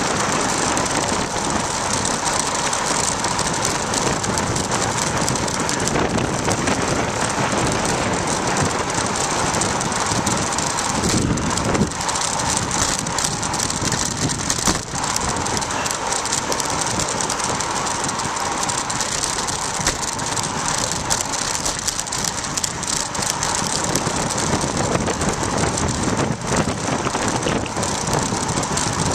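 Steady rush of wind over a bicycle-mounted camera's microphone on a fast downhill run, mixed with tyre noise on asphalt and frequent small rattles and knocks from the homemade bike camera mount.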